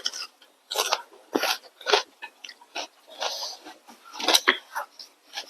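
Close-up eating sounds: wet chewing and lip-smacking in irregular short bursts, about eight to ten of them.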